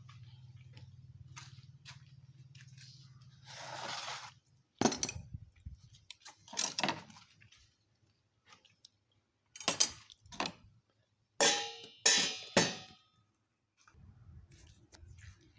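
Crunchy fried chicken being bitten and chewed: about half a dozen separate crisp crackly bites with short pauses between them. A low steady hum runs under the first few seconds and again near the end.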